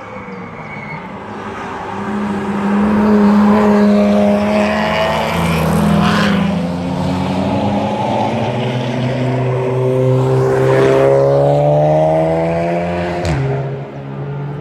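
Several cars driven hard past on the Nürburgring Nordschleife, their engines overlapping with tyre and road noise. The engine notes climb as the cars accelerate, and one note falls abruptly near the end.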